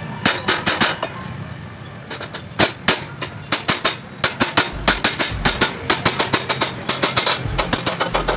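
Wooden mallet beating the edge of a galvanized steel sheet over a steel channel to fold it: sharp metallic knocks, a few spaced blows at first, then rapid steady hammering of about four to five blows a second from about four seconds in.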